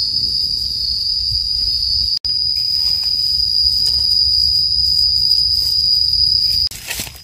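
A steady, high-pitched insect drone, loud and unbroken except for an instant dropout about two seconds in, and it cuts off suddenly near the end.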